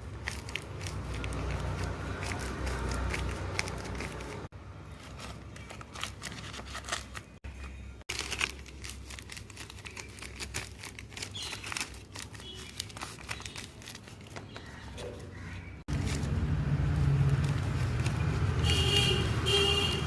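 Paper crinkling and rustling as it is handled, in short clips cut together. In the last few seconds a louder steady low rumble takes over.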